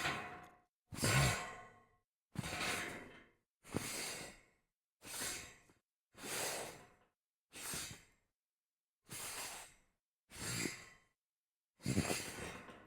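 A series of slides across a metal grate: about ten separate scraping strokes, each under a second long and fading out, one roughly every second and a half.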